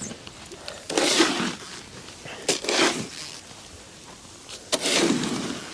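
A snow shovel scraping and scooping dry, powdery snow in three strokes, a couple of seconds apart.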